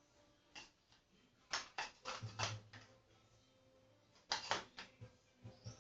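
Spoon clicking and scraping against a plastic pot while stirring slime, in several short clusters of sharp clicks.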